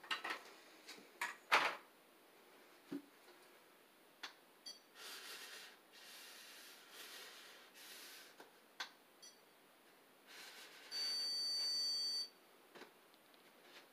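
Handheld electronic stud finder moved over drywall: a few light knocks and soft rubbing, then one steady electronic beep lasting just over a second, about eleven seconds in. The beep is the finder's signal that it senses a stud behind the wall.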